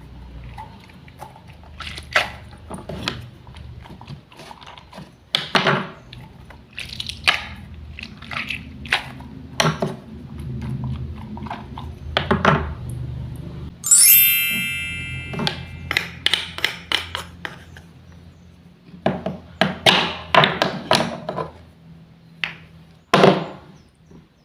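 Wooden toy fruits and vegetables being cut apart with a toy knife: a string of irregular knocks and short scraping clacks of wood on wood. A bright ringing chime sounds once about fourteen seconds in.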